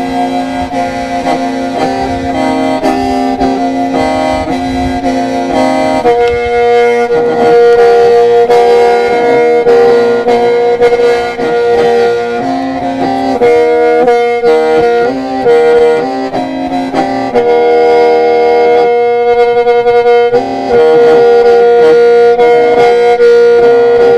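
Hmong qeej, a bamboo free-reed mouth organ, playing a traditional funeral-ceremony song: reedy sustained chords over a held drone note, the upper notes changing in short phrases every second or so.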